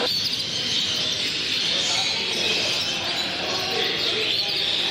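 Many small caged birds chirping and twittering together in a steady chorus, with a murmur of people talking underneath.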